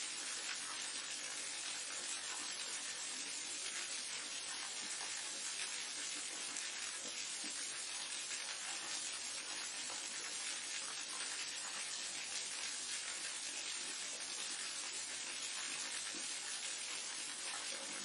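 Waterfall: falling water making a steady, even rushing hiss.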